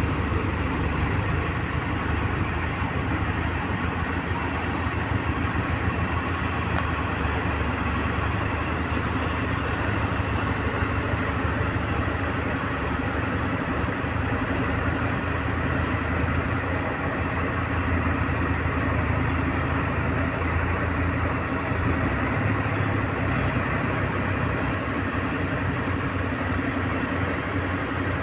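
A truck crane's diesel engine running steadily while the crane holds a heavy tank on its hook.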